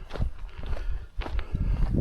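A hiker's footsteps on an outdoor path at a steady walking pace, about two steps a second.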